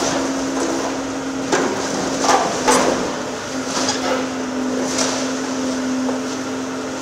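Volvo EC750EHR high-reach demolition excavator running with a steady hum while its attachment tears at brick and timber. About five sharp, irregular cracks and knocks of breaking and falling debris sound in the first five seconds.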